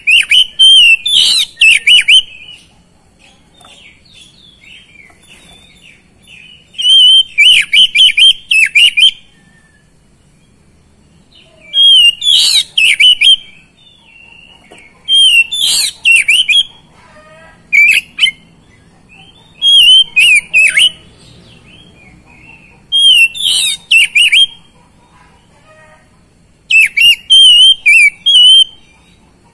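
Caged Oriental magpie-robin (kacer) in full song: loud whistled phrases of one to two seconds, about eight of them, each separated by a pause of a few seconds.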